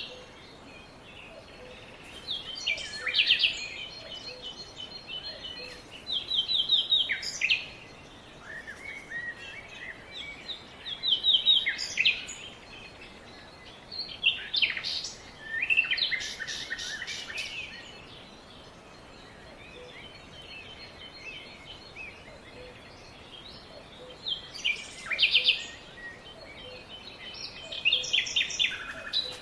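Songbirds singing and chirping in phrases of rapid, high notes, about six phrases spread through the stretch with short gaps between them, over a steady background hiss.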